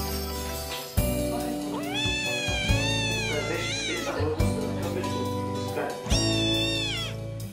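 Small kitten meowing over background music: a long high call about two seconds in, a shorter one right after it, and another near the end.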